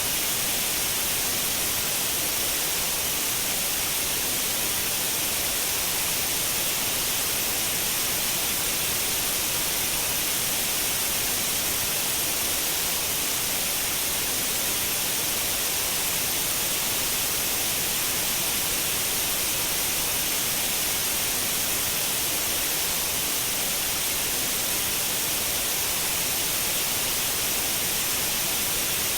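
Continuous white noise: an even, steady hiss, bright and hissy at the high end, with no change in level.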